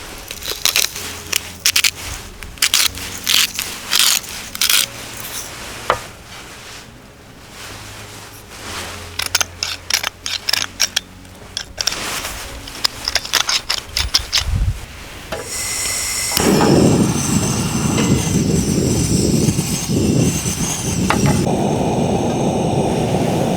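Wood fire crackling, with clusters of sharp pops and snaps. About two thirds of the way in, a loud steady rushing noise takes over.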